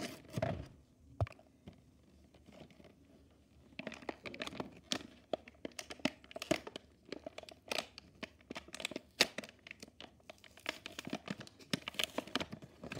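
Crinkly plastic toy packaging being crumpled and torn open by hand. A few crackles at the start, a quieter stretch, then from about four seconds in a busy run of crackling and ripping.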